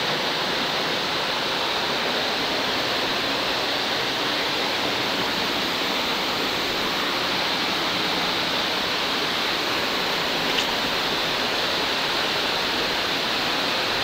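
Waterfall: water falling from a height onto rocks in a steady, even rush. There is one faint click about ten and a half seconds in.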